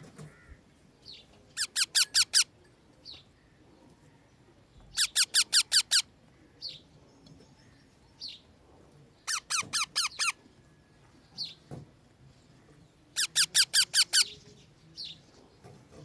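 Parakeet calls in a nest box with a chick: four bursts of rapid, evenly spaced shrill notes, each burst about a second long and coming roughly every four seconds. Fainter single short chirps come between the bursts.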